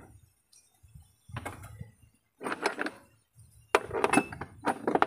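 Metal tools and engine parts clinking and rattling as they are handled, in about four short bursts with quiet gaps between them.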